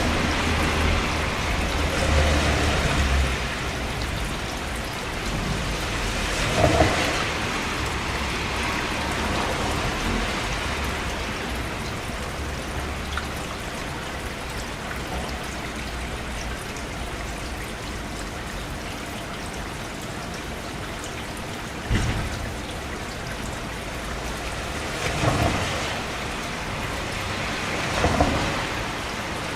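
Steady rain falling, an even hiss of drops. A low rumble sits under it in the first few seconds, and four brief louder hits stand out: about 7 seconds in, then three more in the last third.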